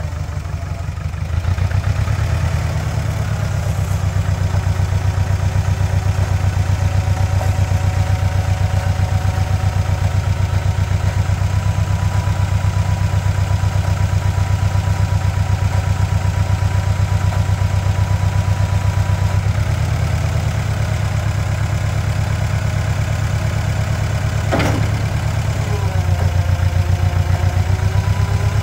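1953 Ford Jubilee tractor's four-cylinder overhead-valve gasoline engine running steadily, picking up speed about a second and a half in, while the loader bucket is raised and tilted. A thin whine sits over the engine for much of the time, with a single clank about three-quarters of the way through.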